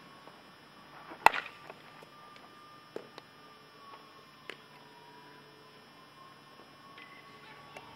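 A single sharp crack about a second in, a bat hitting a ground ball in fielding practice. A few fainter knocks follow over a quiet background.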